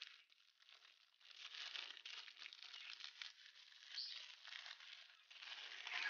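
Faint, irregular crinkling of a thin plastic packaging bag as it is handled and a small toy is taken out of it.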